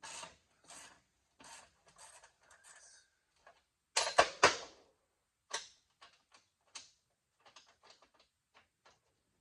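Hand wrench working a vise mounting bolt with a pinched locking nut. Short strokes about every 0.7 s, then loud metal clanks with a ringing note about four seconds in, then a run of quick light clicks.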